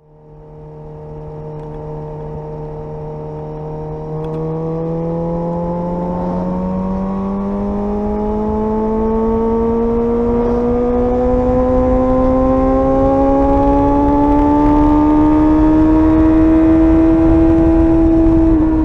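Suzuki GSR 600's inline-four engine under way, holding a steady note for a few seconds and then rising slowly and evenly in pitch in a single long pull, with wind and road rumble growing as the motorcycle gathers speed; the pitch dips slightly at the very end.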